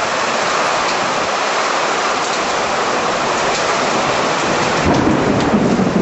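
Heavy rain pouring down steadily in a severe thunderstorm, with a low rumble of thunder building near the end.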